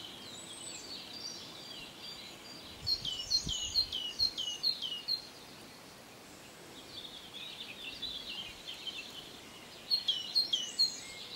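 Wild birds singing: runs of quick downward-sliding chirps about three seconds in and again near the end, with softer chirping in between and a faint steady high tone underneath.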